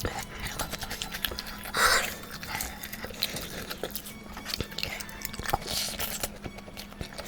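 Close-miked mouth sounds of someone eating garlic chicken: wet chewing and smacking clicks, with a louder noisy burst about two seconds in.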